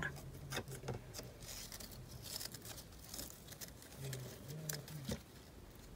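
Faint rustling and light clicks of ribbon being handled and pulled around a plastic headband.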